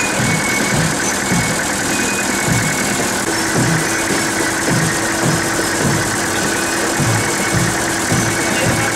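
Tractor engine running steadily at low revs, with an uneven low chugging.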